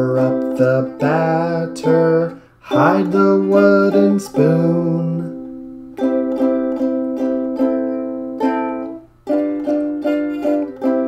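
Sing-along music: a man singing over a strummed string-instrument accompaniment for the first half, then the strummed chords carry on alone.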